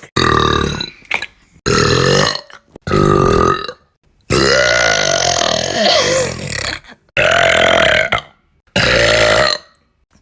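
A string of about six loud, drawn-out burps from girls, each with a croaking pitch that wavers and bends. Each one is cut off sharply, the longest lasting over two seconds in the middle.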